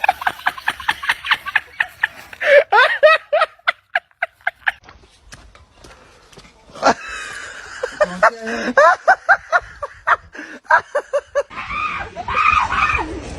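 A person laughing hard in quick repeated bursts, with short high-pitched squealing sounds and a brief quieter pause partway through.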